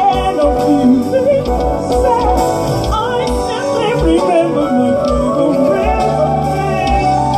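Live jazz band: violins playing a wavering melody over keyboard and a steady low beat.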